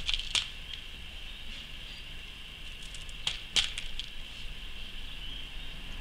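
Small beads clicking against each other and the clear plastic tray as fingers pick through them: a few clicks at the start, light ticks a little before three seconds in, and two sharper clicks soon after.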